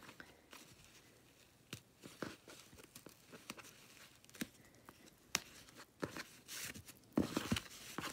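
A ribbon being untied and slid off a cardboard gift box, with soft rustling and scattered light taps and clicks of hands on the box. A louder rustle comes about seven seconds in.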